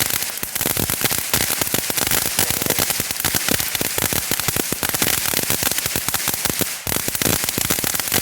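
TNT Fireworks Explosive Thunder ground fountain burning with a dense, continuous crackle, a brief lull about seven seconds in.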